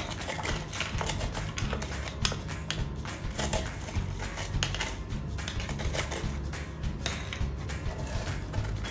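Hand tool scraping and clicking irregularly against the inside of a floor drain as grime is worked loose, over background music.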